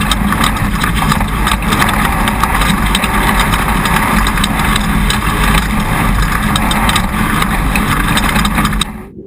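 Onboard sound of a Jimco Class One off-road race car driving hard over rough desert ground: loud engine and wind noise at the front-suspension camera, with constant rattles and knocks from the chassis and suspension. It cuts off suddenly just before the end.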